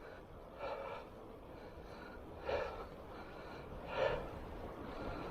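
A cyclist's breathing while pedalling: three short, heavy exhales about a second and a half apart, faint over low wind and road rumble.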